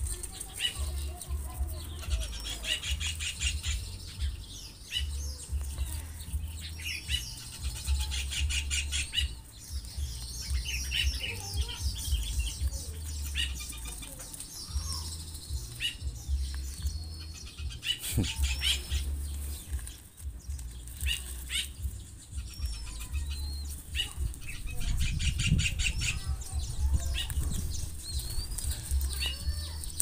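Zebra dove fledglings fluttering their wings in quick bursts as they jostle to feed, with a few small chirps.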